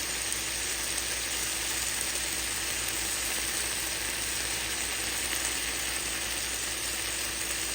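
Food sizzling in a hot pan as a stir-fry cooks: a steady frying hiss.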